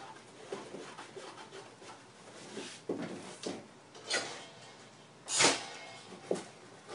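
Cardboard box being handled and taped at its corners: scattered rustles, taps and scrapes of cardboard, and a little after five seconds in a short, loud rasp of packing tape pulled off its roll.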